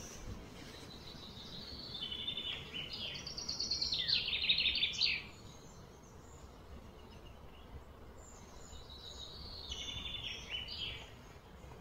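A songbird singing two phrases of rapid, quickly repeated high notes. The first runs from about a second in to five seconds and grows louder before stopping abruptly; the second, shorter and softer, comes near the end. Steady outdoor background noise lies underneath.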